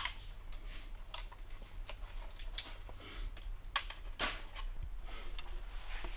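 Workshop room noise: a steady low hum with scattered light clicks and ticks, a few a second apart.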